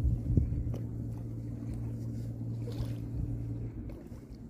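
Boat engine droning steadily at a low pitch, dropping away near the end, with a few light knocks over it.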